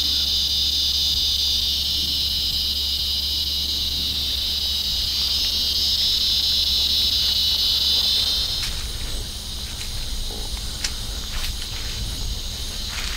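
A dense evening insect chorus makes a steady high-pitched buzz that cuts out suddenly about eight seconds in. After that come scattered footsteps and rustling through brush.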